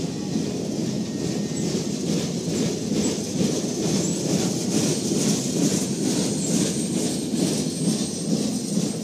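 Train flatcars rolling past on the rails: a steady rumble with a run of wheel clicks as the last cars go by, the rumble carrying on as the train moves away.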